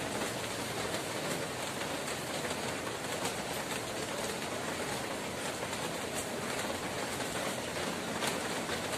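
Steady rain falling, an even hiss with scattered sharper drops.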